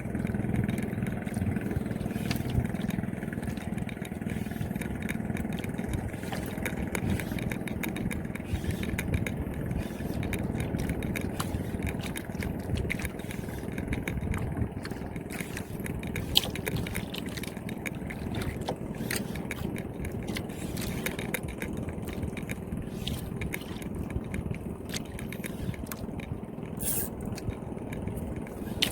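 An engine running steadily, its hum strongest near the start, with many small clicks and ticks over it.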